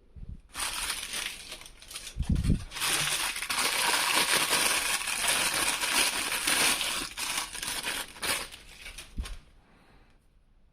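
Toy packaging being handled and opened, a dense crinkling and crushing that starts about half a second in and dies away near the end. Low thumps come in between, about two seconds in and again near the end.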